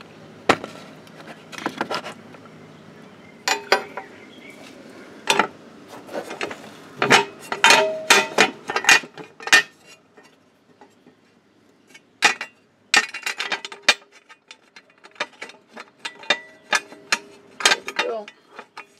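Scattered metallic clicks and clinks of bolts being started by hand into clip-on nuts on an aluminum A-arm guard, in irregular clusters, some knocks ringing briefly off the plate.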